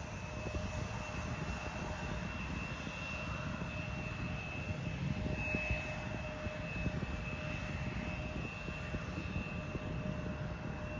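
Turbofan engines of an Embraer E-Jet regional airliner running as it rolls along the runway: a steady high whine over a low rumble, with wind buffeting the microphone.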